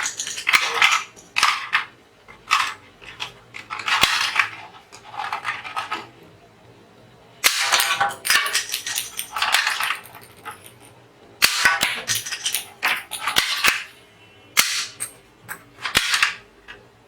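Toy gun firing in several rapid volleys: sharp clicks and short bursts of noise, with pauses of a second or two between volleys.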